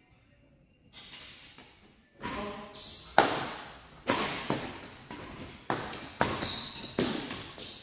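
Badminton rally: rackets striking the shuttlecock in a quick exchange, sharp cracks about once a second with the loudest about three seconds in, each ringing briefly in the large hall.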